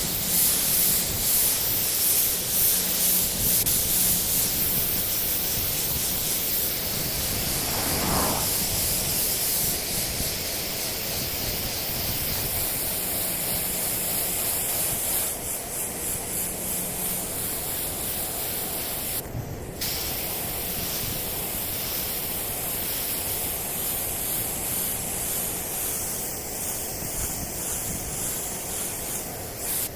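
Steady hiss of compressed air from an air-driven spray or blast gun, cutting out briefly about two-thirds of the way through.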